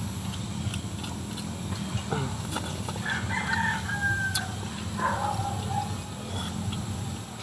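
Domestic fowl calling: a long crow-like call about three seconds in and a shorter call near five seconds, over a steady low hum.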